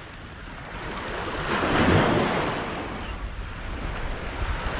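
Surf breaking on a beach: one wave swells to its loudest about two seconds in and then washes out, with wind rumbling on the microphone.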